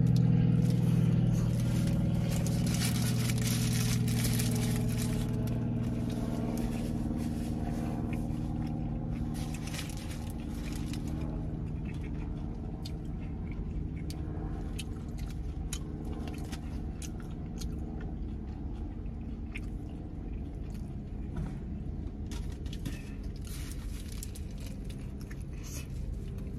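Eating a carne asada burrito: bites and chewing, with the paper wrapper rustling, heard as many small clicks and crunches. A low vehicle hum is loudest at first and fades away over the first several seconds.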